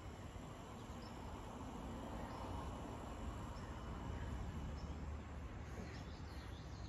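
Quiet outdoor ambience: a low rumble of wind noise under a faint, steady high-pitched insect drone that fades out about five seconds in.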